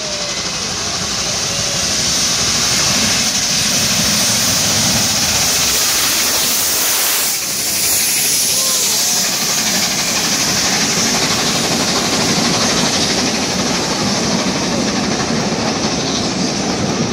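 Tornado winds rushing past: a loud, steady, train-like rush of noise that swells over the first two seconds and dips briefly about halfway through.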